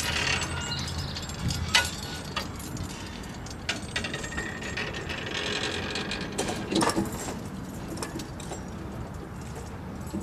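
Level-crossing barrier lowering: the barrier drive and boom clank and click, and the hanging grid under the boom jangles as it comes down and settles, with sharp clanks about two seconds in and again near seven seconds.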